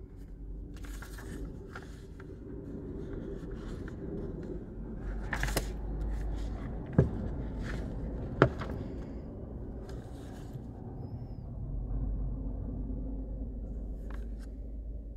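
Paperback book being handled: pages rustling as they are flipped through by hand, with two sharp knocks about a second and a half apart, over a steady low rumble.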